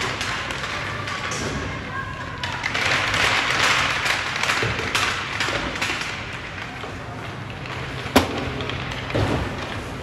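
Sounds of a youth ice hockey game at the rink: scraping and clatter on the ice with voices, a sharp crack about eight seconds in and a duller thud about a second later.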